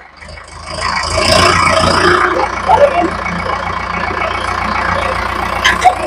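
A vehicle engine running steadily, with a fine rapid low pulse.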